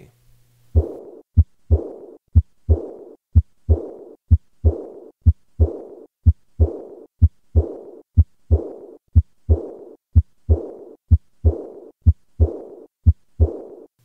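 Heart sounds heard through a stethoscope, a pair of short thuds about once a second, with a blowing murmur that fades away after the second sound of each beat. This is the early diastolic murmur of aortic insufficiency.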